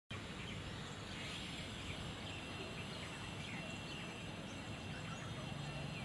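Outdoor ambience: steady background noise with faint, scattered small bird chirps and a thin steady high tone.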